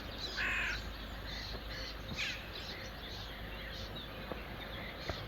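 Crows cawing: a loud harsh caw about half a second in, another near two seconds, then fainter calls.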